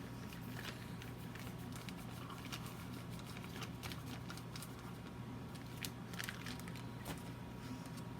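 Sticky shampoo-and-cornstarch slime being kneaded by hand: faint, irregular squishing and crackling clicks over a steady low hum.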